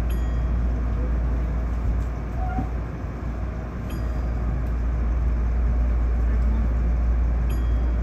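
Electric commuter train running between stations: a steady, heavy low rumble of wheels and running gear on the rails, heard from inside the driver's cab. A short faint squeal comes about two and a half seconds in.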